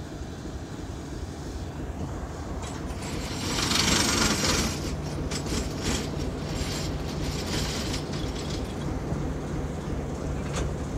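ChME3 diesel shunting locomotive running as it moves off along the track, its engine a steady low drone. A loud hiss comes about three and a half seconds in, followed by a few seconds of metallic clicks and knocks from the running gear.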